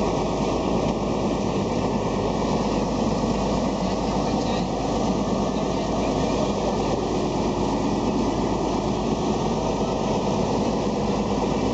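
Boat engine running steadily, a constant drone with no change in speed.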